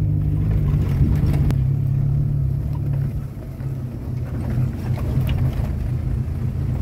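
Off-road 4x4's engine running steadily as it drives a forest track, with a couple of short knocks about a second in. The engine note eases briefly about three seconds in.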